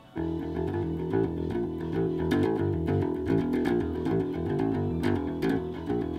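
Electric bass guitar, a Jazz-style four-string plugged into an amp, playing a steady run of plucked notes that step from pitch to pitch, resuming after a brief pause at the very start.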